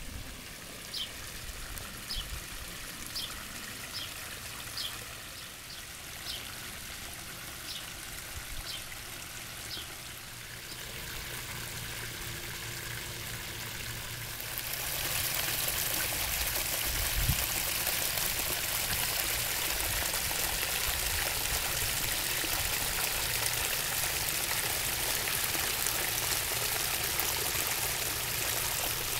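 Water from a small backyard pond's three-tier waterfall splashing down its cascades into the pond, a steady rush that grows clearly louder about halfway through and then holds. Short high chirps, about one a second, sound over it in the first part.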